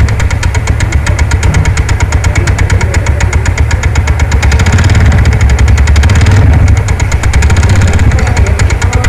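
TVS NTORQ scooter's single-cylinder engine idling with an abnormal fast, even metallic ticking rattle over its steady hum. The mechanic traces the noise to a loose nut on the one-way (starter) clutch.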